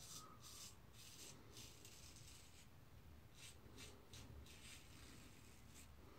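Double-edge safety razor scraping stubble through shaving lather on a cross-grain pass: faint, short strokes in two quick runs with a pause between.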